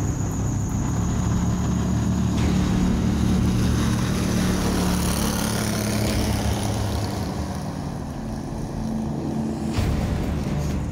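Outboard motor running at speed, pushing a small jon boat across the water: a steady engine drone that shifts abruptly about two and a half seconds in and again near the end.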